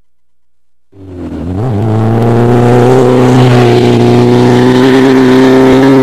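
Off-road race vehicle engine at high revs, coming in about a second in and building quickly, then holding steady with its pitch slowly climbing.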